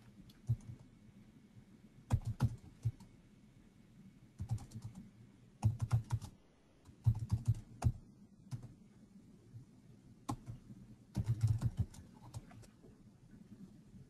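Typing on a computer keyboard: short bursts of rapid keystrokes separated by pauses of a second or two.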